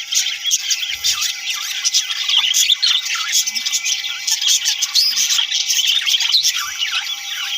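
A flock of budgerigars chattering: many overlapping high chirps, squawks and warbles without a break.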